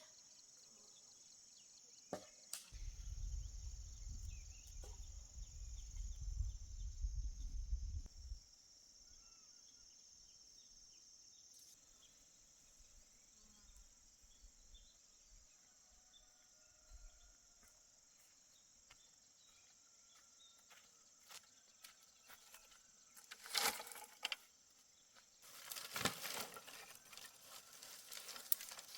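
Insects chirring in a steady high-pitched drone that drops away about twelve seconds in. A low rumble runs for about five seconds early on, and bursts of crackling near the end.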